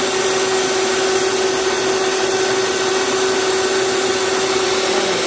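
Tefal Prep'Line 450 W hand mixer on its stand, running at a constant speed with its beaters whipping egg whites in the bowl. It makes a steady motor whine over a whirring hiss.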